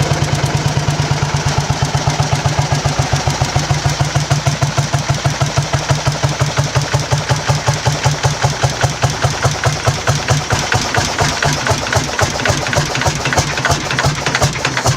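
An old engine running steadily, with a regular beat of firing pulses several times a second.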